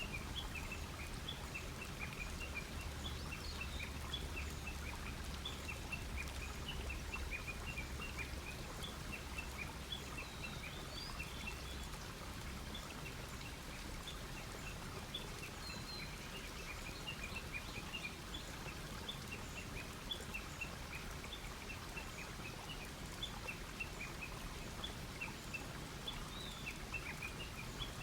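Wood campfire crackling steadily with many small pops and a low rumble, while birds chirp now and then.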